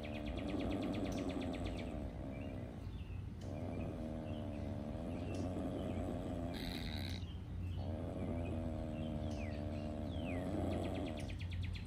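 Young Virginia opossum growling with its mouth gaping, a defensive threat from the trapped animal. It gives three long rasping growls of a few seconds each, with short pauses between them.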